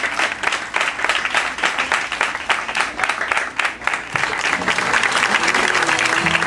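A congregation clapping steadily, many hands together. Near the end, music with held notes starts up under the clapping.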